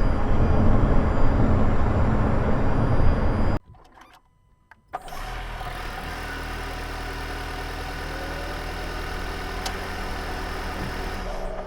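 Honda ZR-V's engine bay, heard from a microphone inside it: a loud running sound that cuts off abruptly about three and a half seconds in, near silence for about a second and a half, then a quieter, steady running sound with a few steady tones. The owner is hunting an abnormal noise he suspects comes from the engine bay.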